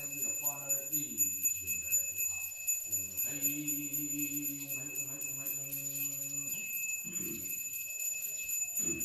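A bell rung continuously in quick, even strokes, with a voice chanting a ritual invocation in long held notes, louder and steadier in the middle.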